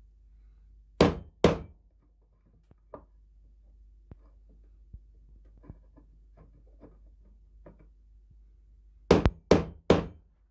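Hammer blows on a steel bayonet blade lying in a wooden block. There are two sharp blows about a second in, faint knocks from the blade being handled, then three quick blows near the end.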